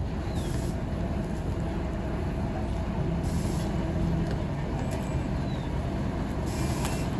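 Heavy diesel engine running steadily at a low rumble, with short hisses of air three times.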